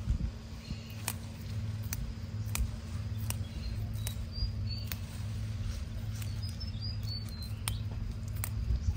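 Quiet outdoor sound: a steady low rumble with scattered light clicks and rustles, and a few faint, short high chirps, like small birds, in the middle and near the end.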